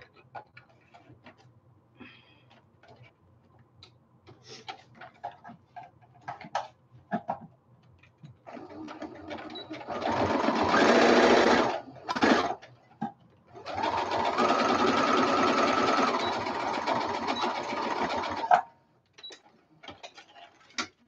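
Brother electric sewing machine stitching fabric. After several seconds of faint clicks from the fabric being handled, the machine runs for about three seconds, gives a brief burst, then runs steadily for about five seconds more and stops with a click.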